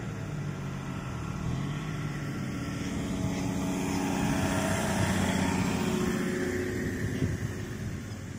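4WD engine revving under load in soft sand, building to its loudest about five seconds in and then easing off.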